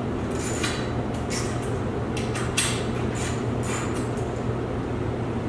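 Set screws on a garage door torsion spring's winding cone being loosened: a few short, irregular metallic clicks and scrapes from the tool on the hardware, over a steady low hum.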